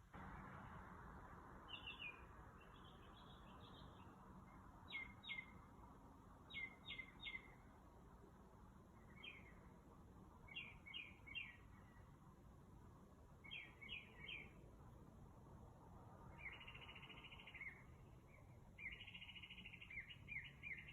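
A songbird singing faintly: short phrases of two or three quick notes repeated after pauses, then two longer rapid trills near the end.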